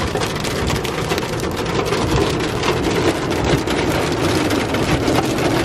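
Hail and heavy rain pelting a pickup truck, heard from inside the cab: a dense, steady clatter of many small hits on the roof and windshield, the hailstones getting bigger and more numerous.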